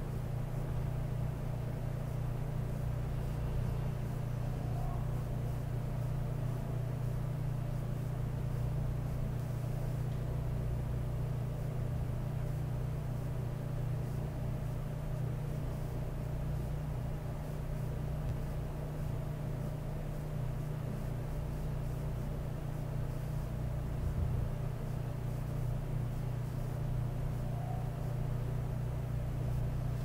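A vehicle engine running with a steady low drone that does not change throughout.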